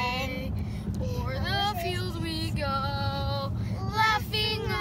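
Children singing inside a moving car, with one long held note near the middle, over steady low road noise in the cabin.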